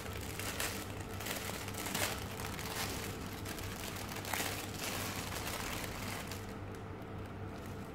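Clear plastic packaging crinkling and rustling in irregular handling as a necklace is unwrapped from it, over a faint steady low hum.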